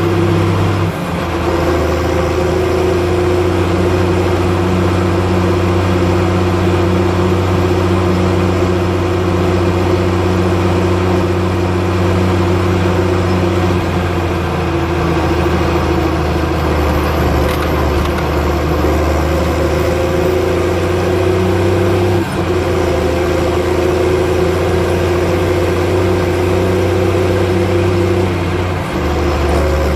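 Ford 8830 tractor's six-cylinder diesel engine running steadily at a constant speed, with brief shifts in its low note about a second in, about three-quarters of the way through and near the end.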